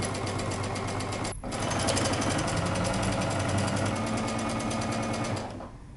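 Domestic sewing machine stitching steadily, running a basting stitch through layers of knit fabric, with a rapid even rhythm of needle strokes. It breaks off briefly about a second and a half in, then runs on and stops shortly before the end.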